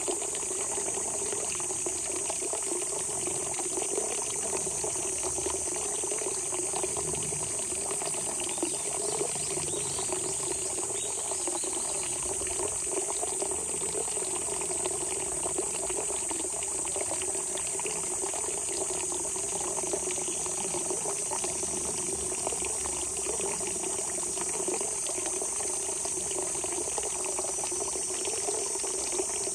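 Spring water gushing up out of the ground and flowing steadily, a continuous rushing gurgle, with a constant high-pitched insect chorus over it.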